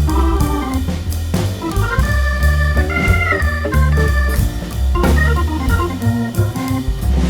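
Background music led by an organ-like electronic keyboard over a steady bass line.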